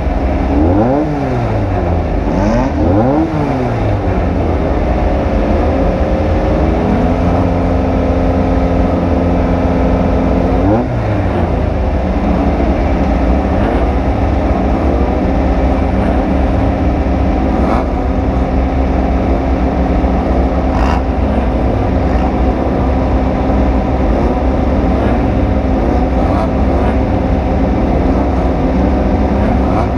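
Off-road race vehicle's engine revving up and down in quick rises and falls for the first few seconds. It settles, climbs once more about eleven seconds in, then runs steadily at high revs over a heavy low rumble.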